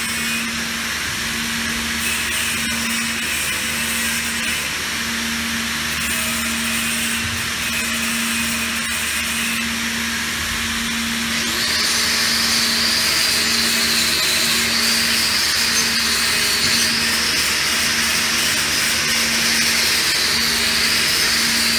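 Steady hiss, then about halfway through a handheld angle grinder comes in and runs on the steel pipe weld with a high, wavering whine that is louder than the hiss before it.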